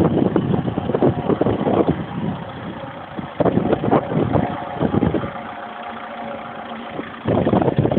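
Steyr 980 tractor engine running steadily while ploughing, with gusty wind buffeting the microphone; the buffeting eases for a couple of seconds past the middle.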